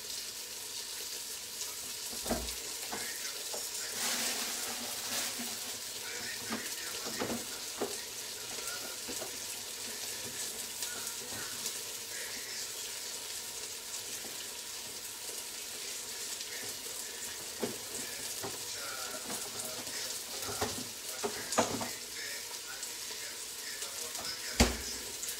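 Vegetables frying in olive oil in a steel pot on the hob: a steady sizzle, broken by a few sharp knocks, the loudest near the end.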